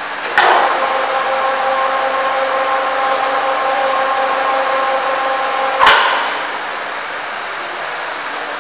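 Overhead crane's electric motor running with a steady whine for about five and a half seconds. It starts with a sharp clunk and stops with a louder clunk that rings on briefly.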